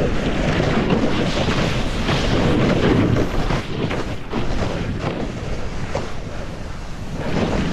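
Wind rushing over the microphone as a snowboard slides downhill, its base and edges hissing and scraping through tracked, chopped-up snow.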